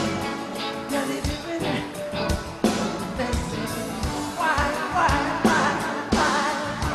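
Pop song performed live by a band, with a singing voice over keyboards and a steady drum beat.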